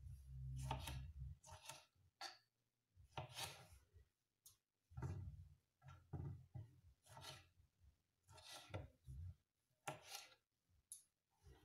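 Kitchen knife slicing ripe tomatoes into wedges on a wooden cutting board: faint, irregular cuts and taps of the blade on the board, about one a second.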